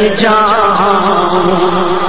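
Male voice singing an Urdu naat, drawing out one syllable with wavering ornaments over a steady drone.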